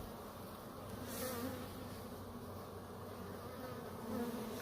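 Honeybee swarm buzzing in a steady hum, louder for a moment about a second in and again near the end as bees pass close. The bees have been stirred up by being nudged and are lifting into the air.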